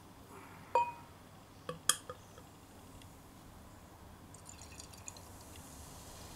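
Dark ale poured from a glass bottle into a tilted stemmed glass. A ringing glass clink comes a little under a second in, and a few knocks of glass on glass come about two seconds in. Then a quiet pour follows, with a faint fizzing crackle of the head forming.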